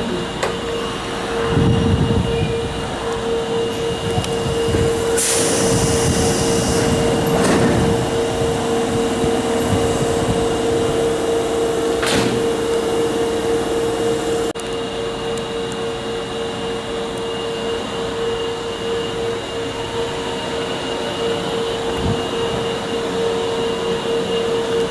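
Osaka Metro subway train standing at a station platform, with a steady hum throughout. About five seconds in there is a few-second burst of hiss, and a sharp click comes near the middle.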